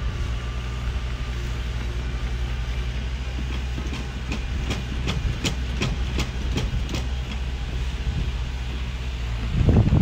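Heavy diesel earthmoving machinery running steadily with a low drone, and a run of sharp metallic clanks about three a second in the middle. A louder rumble comes in near the end.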